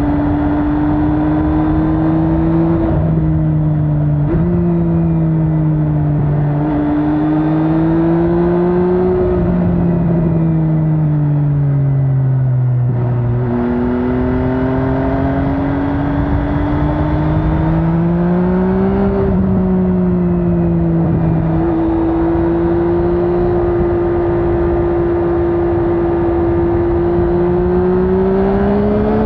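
MV Agusta Brutale 800's three-cylinder engine under way, its pitch rising and falling with the throttle and stepping sharply several times as gears change.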